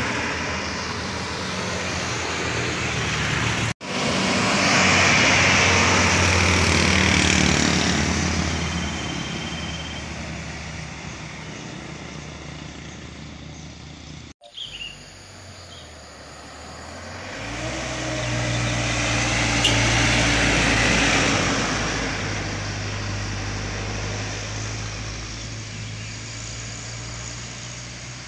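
Road traffic on a hill road: motorcycles and heavy vehicles passing, with engines running and tyres on asphalt. There are two loud pass-bys that swell and fade, one just after a sudden cut about four seconds in and one about twenty seconds in. A second sudden cut comes about fourteen seconds in.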